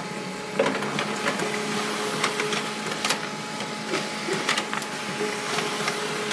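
HP LaserJet Pro 3001dw laser printer running a print job: a steady whir of its motors and rollers, with scattered sharp clicks as a sheet feeds through and comes out into the output tray.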